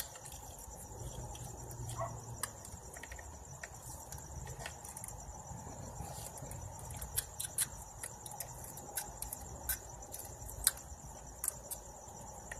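Crickets chirping steadily, with irregular sharp clicks and scrapes over them from a blade scraping old gasket material off the engine's thermostat-housing mating surface.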